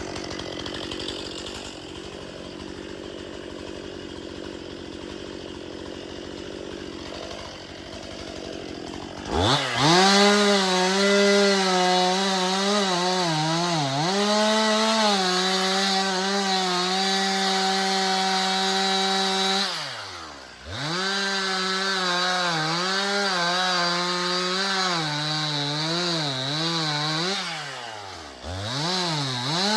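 Two-stroke chainsaw running quietly, then opened up to full throttle about a third of the way in and cutting wood, its pitch sagging and recovering as the chain loads up in the cut. The throttle is let off briefly about two-thirds of the way through and again near the end, and opened back up each time.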